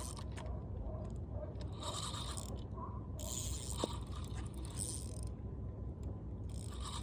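Fishing reel being cranked to bring in a hooked fish, its gears turning and clicking, over a steady low rumble.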